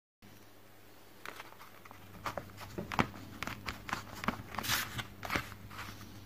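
Irregular small clicks and taps with a brief scrape, from fingers handling a clear plastic lid and pressing painted eye pieces into blobs of putty on it, over a faint low hum.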